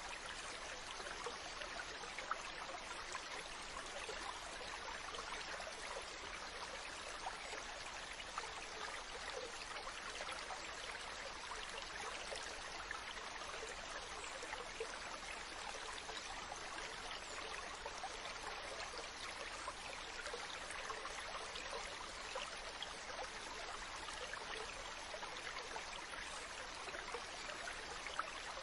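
Running water, a steady trickling babble with many small splashes and droplets, unchanging throughout.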